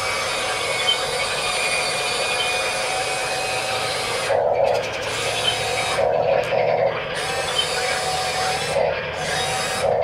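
Electric track motors and gearboxes of a Huina radio-controlled excavator running as it crawls through mud, a steady mechanical whir. From about halfway on the sound changes several times in short spells, the hiss dropping away under a lower drone.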